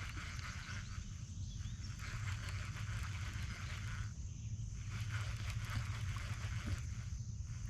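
Outdoor lakeside ambience: a steady high insect drone over a hiss that drops out briefly three times, with a constant low rumble underneath.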